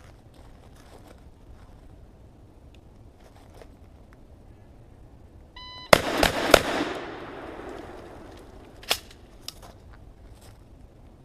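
A shot timer beeps, then a Remington 870 pump-action 12-gauge shotgun fires three full-power 1-ounce rifled slugs in quick succession, all within less than a second, with echo trailing off after the last shot. A single sharp click comes about two seconds later.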